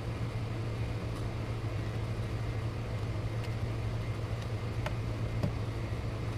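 Steady low hum on the workbench, with a few light clicks of small parts and tools being handled, about three near the end.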